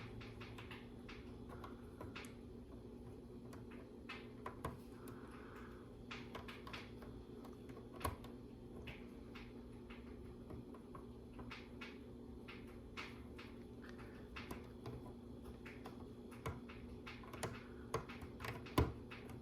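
Faint, scattered clicks and taps of small plastic LEGO pieces being handled and pressed onto a build, with a few sharper snaps, over a steady low hum.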